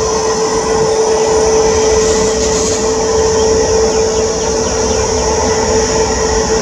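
Boeing 777-300ER's GE90 turbofan engines running at takeoff power: a steady, loud rush of jet noise with a constant humming tone and a high whine.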